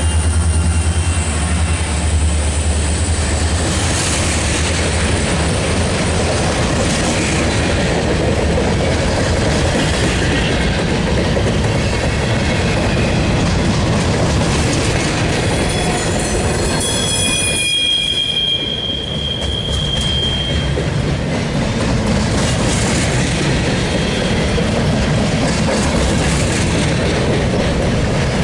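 CSX local freight train rolling past: a steady rumble and clatter of freight cars on the rails. A low drone at the very start fades within about a second, and the wheels squeal in high tones for a few seconds past the middle.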